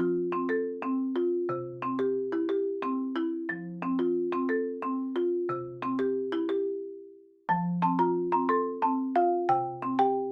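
Background music: a light repeating tune on marimba-like mallet percussion, with a low note about every two seconds. It fades out about seven seconds in and starts again half a second later.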